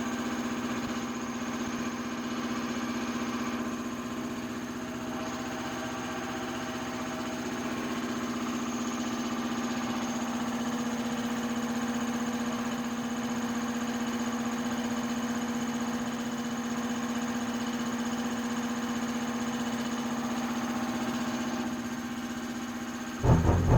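Steady machine hum at a constant pitch, with a faint even rattle under it. A louder, rougher low running sound cuts in near the end.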